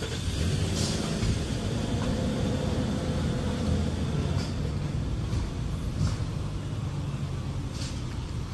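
Steady low rumble of a vehicle on the move, with a few faint ticks.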